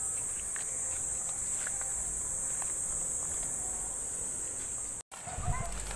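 Insects buzzing in a steady high-pitched chorus. The sound drops out for an instant about five seconds in; after that, wind rumbles on the microphone and a few short chirps sound.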